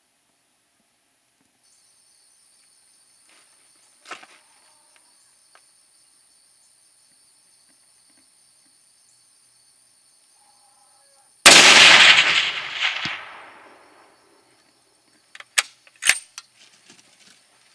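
A single shot from a .338 Edge rifle: one loud report, its echo dying away over about two seconds. A few sharp clicks follow some seconds later.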